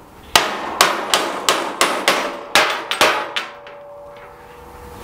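A hammer beating on metal, about nine quick blows in three seconds, nudging a heavy air compressor unit into place on its steel mounting frame. A faint metallic ring hangs on for a second or so after the last blow.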